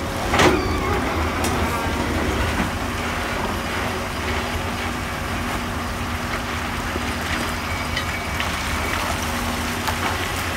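Komatsu PC200 hydraulic excavator's diesel engine running steadily under load as it digs into broken rock, with one sharp knock about half a second in.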